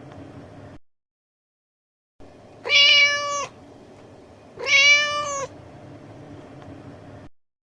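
Domestic cat meowing twice, two short meows about two seconds apart, each lasting just under a second.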